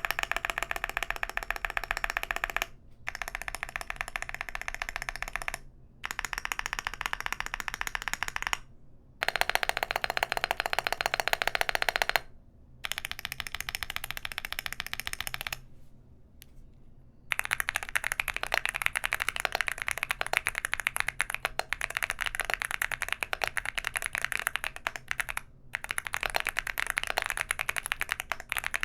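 Weikav Lucky80 mechanical keyboard with Geon white switches and SA-profile keycaps being typed on fast. The rapid keystrokes come in runs of a few seconds broken by brief pauses, with some runs louder than others.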